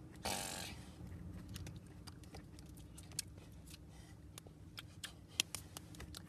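Faint scattered clicks and rustles from hands moving and brushing together while gesturing, with a short breathy sound just after the start.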